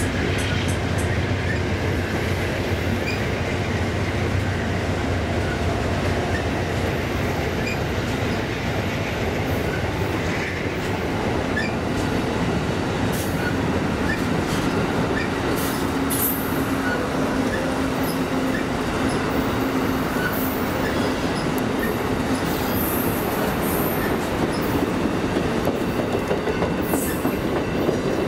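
Amtrak Silver Meteor passenger cars rolling past at the platform: steady wheel-on-rail running noise from the coaches' trucks as the train goes by.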